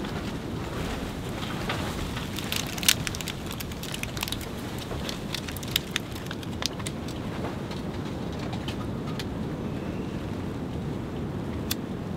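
Steady wind and rain buffeting the hot tent's fabric, with a run of small sharp snaps and clicks a few seconds in, the loudest about three seconds in. A single sharp click near the end, as a disposable lighter is struck.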